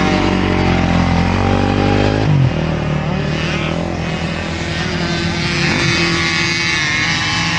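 Engines of several small peewee dirt bikes racing, their pitch rising and falling as they rev and ease off. A loud, close engine drops away a little over two seconds in.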